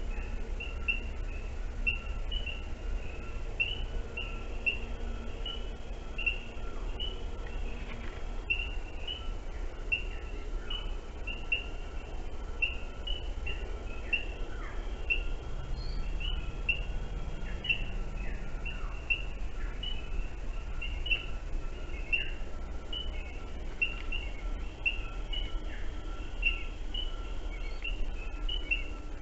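Small forest birds chirping: short, high notes repeated over and over, a couple every second or so, with a few falling calls among them, over a steady low hiss and rumble from the trail camera's microphone.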